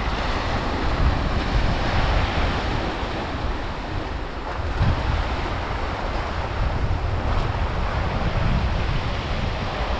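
Ocean waves breaking and washing over a flat rock shelf, with wind buffeting the microphone as a low rumble.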